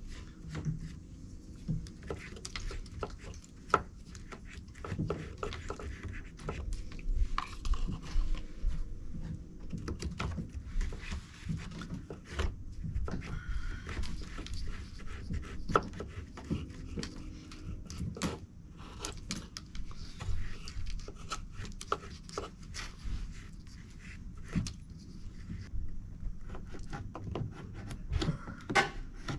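Putty knife scraping and tapping against a wooden window sill as a paste of sawdust and wood glue is forced into its cracks: scattered, irregular clicks and scrapes.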